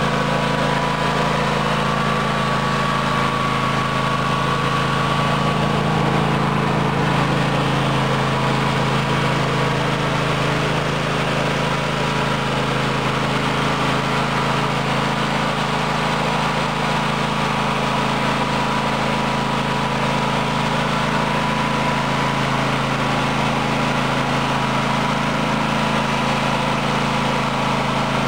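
Toro riding lawn mower's engine running at a steady speed, a continuous drone with a faint high whine over it.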